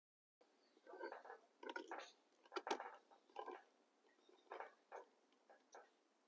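Faint, irregular clicks and scrapes of a handheld crank can opener cutting around a steel can's lid.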